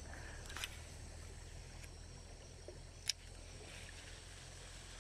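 Low, steady rush of a shallow stream's rapids, with a sharp click about three seconds in.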